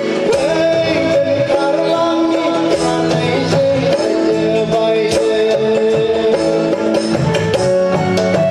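Music: a Bodo-language song with singing and a keyboard melody.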